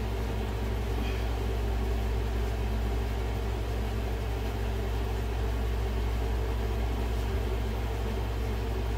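Steady low mechanical hum with no distinct events.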